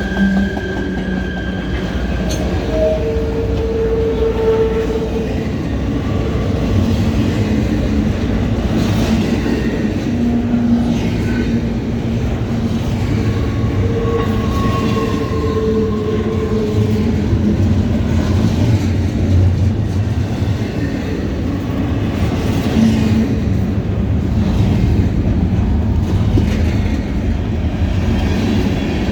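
A long freight train rolling past, a steady rumble of wheels on the rails, with a few faint ringing tones coming and going.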